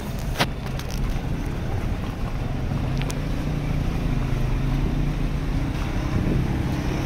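A car driving slowly over a gravel road, heard from inside the cabin: steady engine hum and tyre rumble with wind noise on the microphone, and two sharp ticks, about half a second in and about three seconds in.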